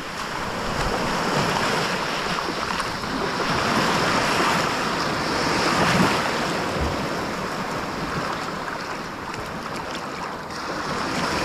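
Ocean surf washing and breaking in the shallows, with wind buffeting the microphone; the wash swells and eases, loudest about six seconds in.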